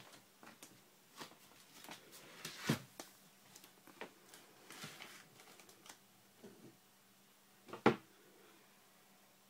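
A kitten playing around a plastic basket on a tiled floor, making scattered light taps, scuffs and rustles, with two sharper knocks about three seconds in and near eight seconds.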